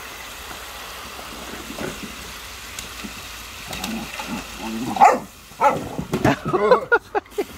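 Giant schnauzer puppy barking and yipping in quick short bursts as it paws and splashes in a plastic paddling pool, the barks starting about halfway through and loudest about five seconds in. Underneath, the steady hiss of a garden hose spraying water into the pool.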